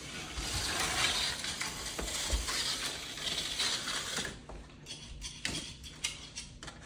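TYCO HO-scale slot car running on the plastic track, its small electric motor and gears making a steady whirring buzz for about four seconds, which then gives way to a string of sharp plastic clicks and taps.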